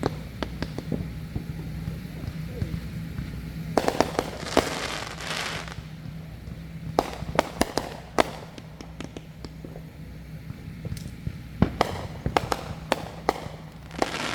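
Backyard fireworks going off: sharp bangs in clusters, with crackling bursts after a volley at about four seconds and again near the end.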